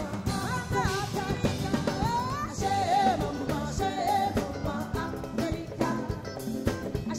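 Live band music: a woman singing lead into a microphone, her melody wavering and gliding, over a drum kit and guitars.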